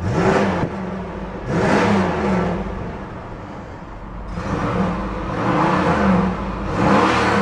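1993 Cadillac Sedan DeVille's 4.9-litre port-fuel-injected V8 revved four times from idle, the third rev held longer, each time rising and falling back, with a very throaty growl, heard from the driver's seat.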